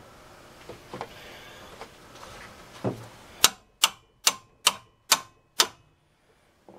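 Hand hammer blows on the fan clutch nut, struck to break the nut loose while the water pump pulley is braced against turning. A softer knock, then six sharp strikes, about two a second, each with a short ring.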